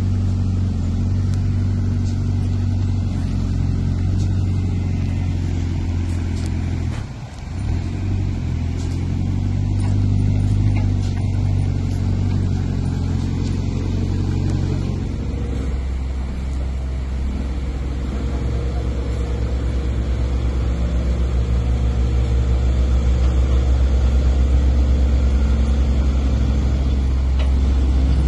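Engine running steadily close by. Its sound dips briefly about seven seconds in and then settles to a lower, steadier note from about halfway on.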